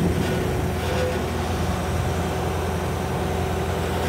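Pump rig truck's engine running steadily, powering the hoist as drop pipe is lowered into a well.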